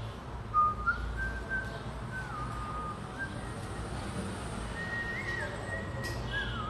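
A person whistling a slow tune, clear single notes that hold and step between a few pitches, over a low steady hum. Two brief knocks about half a second in.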